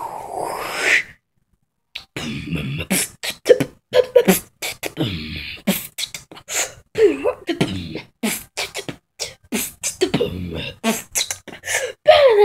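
Mouth beatboxing: quick percussive clicks and pops made with the lips and breath, mixed with short hummed vocal slides. The sound cuts out completely for about a second shortly after the start, then carries on.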